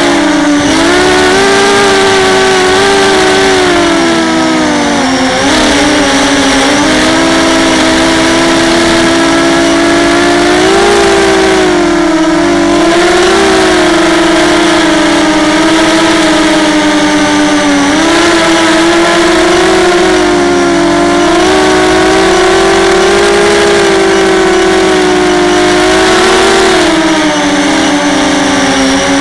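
ZMR250 racing quadcopter's electric motors and propellers buzzing loudly, the pitch rising and falling with throttle as it flies.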